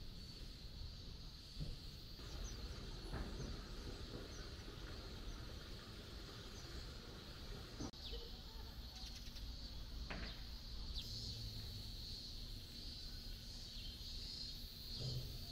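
Outdoor ambience: a steady high-pitched hum over a low background noise, with a few short, high bird chirps scattered through.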